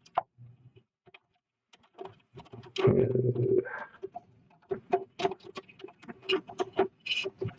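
Hands working power-supply cables inside a desktop PC case: irregular clicks, knocks and rattles of cable plugs and plastic parts, with a louder shuffle about three seconds in and quicker clicking in the second half.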